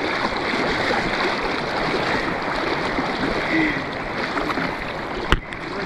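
Steady rush of the Kenai River's flowing water, with a single sharp click near the end.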